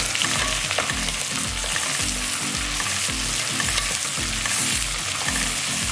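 Sliced onions sizzling in hot coconut oil in a pressure cooker, being stirred and scraped with a spoon as they sauté. The frying hiss is steady.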